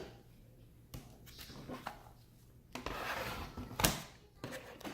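Plastic laptop battery being slid into its bay on an HP 15-f222WM laptop: light clicks and knocks of handling, a second or so of scraping, then a sharp click as it latches into place near the end.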